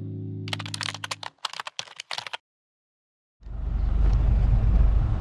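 The last chord of the intro music fades out. Under it and after it comes a quick run of typing key clicks lasting about two seconds, a typing sound effect. After a second of silence, a steady low rumbling noise starts near the end.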